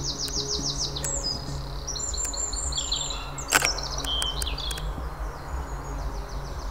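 Small songbirds singing: quick, high trilled phrases and runs of falling notes, repeated and overlapping, over a low steady background hum. A single sharp click sounds about halfway through.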